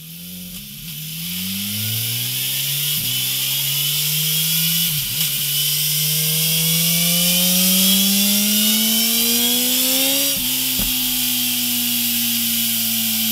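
BMW S1000R inline-four engine breathing through a MIVV Suono slip-on exhaust, revving hard on a dynamometer. Its pitch climbs steadily, with short breaks about 3 and 5 seconds in, and peaks about 10 seconds in. It then falls away slowly as the revs drop.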